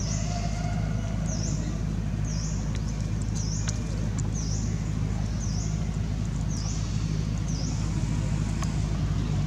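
A steady low mechanical hum, with a short high chirp repeating about once a second above it and a few faint clicks.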